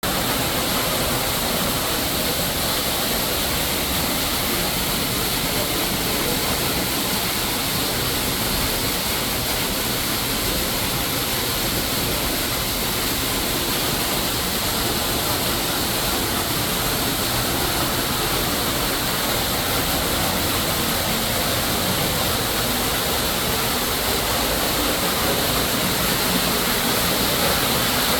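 Waterfall in an indoor rainforest exhibit, water pouring with a steady, unbroken rush.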